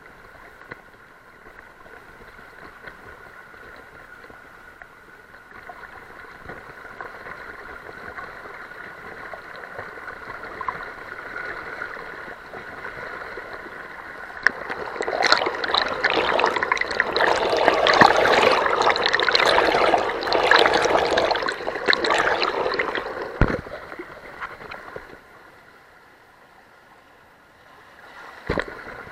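Fast-flowing river water rushing around a camera at the surface. For about ten seconds in the middle it grows much louder, splashing heavily through a shallow rapid, then drops back to a quieter rush. Two sharp knocks come near the end.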